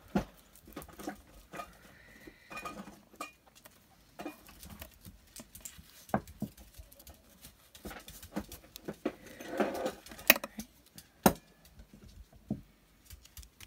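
Hands handling cardstock and paper on a cutting mat: scattered small clicks and taps, with a short papery rustle a little under ten seconds in, as a fingernail works at peeling the backing off an adhesive piece.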